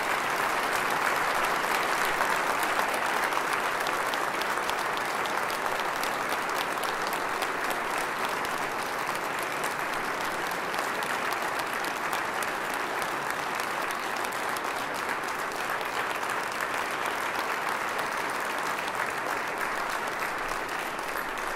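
Congregation applauding: sustained, steady clapping from many people that eases off slightly toward the end.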